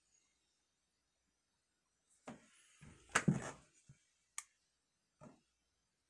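Near silence for about two seconds, then scattered handling noises: a soft knock, a louder dull rustling thump about three seconds in, and a sharp click a little later.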